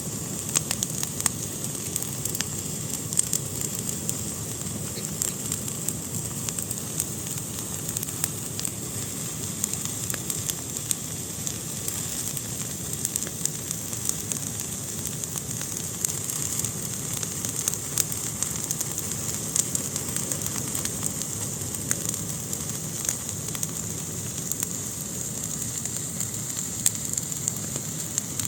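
Fire burning in a fireplace: a steady hiss dotted with many small crackles and pops.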